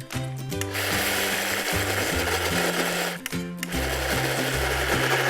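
Electric mixer grinder running at high speed, grinding soaked urad dal and raw rice into a thick batter; it starts about a second in, stops briefly past the middle and starts again. Background music plays throughout.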